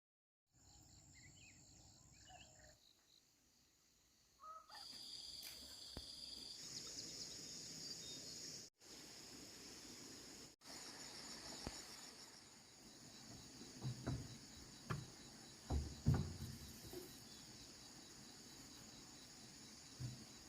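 Insects keep up a steady high-pitched chorus, with a few short bird calls in the first seconds and several dull knocks a little past the middle.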